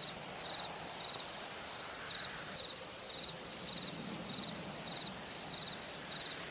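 Night ambience: a cricket chirping in a steady series of short pulsed chirps, two to three a second, over an even hiss.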